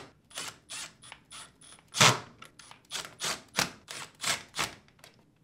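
Cordless Milwaukee Fuel driver running screws back into a dishwasher door: a quick string of short clicks, some with a faint high whine, the loudest about two seconds in.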